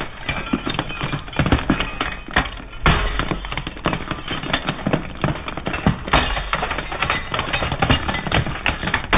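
White tube lights cracking and splintering under a slowly rolling car tyre: a dense, rapid crackle of breaking shells, with heavier cracks about three and six seconds in.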